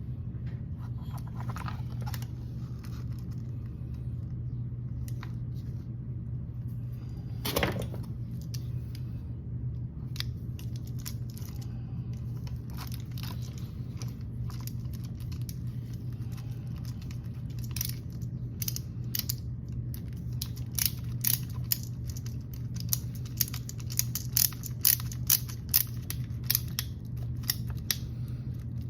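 Small metal parts and a hand tool clicking and tapping as a small screw is fitted into an RC car's metal motor mount and chassis brace. There is one louder knock about seven seconds in, and quick clicks come thicker in the second half, over a steady low hum.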